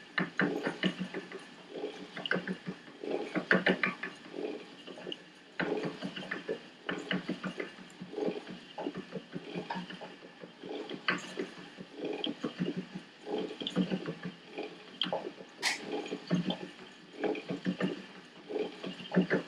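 Ashford Traveler single-treadle spinning wheel running as it is treadled, the drive wheel and flyer turning: a run of irregular short knocks and clicks, with one sharper click about three-quarters through.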